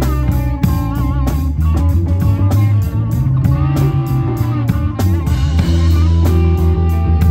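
Live rock band playing: electric guitar with wavering, bent notes over a steady drum-kit beat and deep bass notes.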